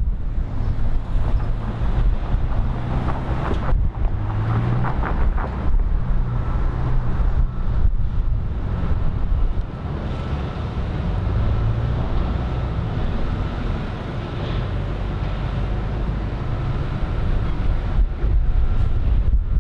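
Wind buffeting the microphone in uneven gusts, over outdoor street noise that gets louder and busier a few seconds in.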